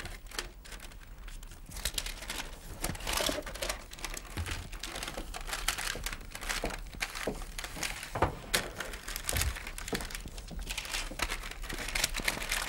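Sheets of greaseproof paper crinkling and rustling in irregular crackles as they are folded around sandwiches and buns to wrap a packed lunch.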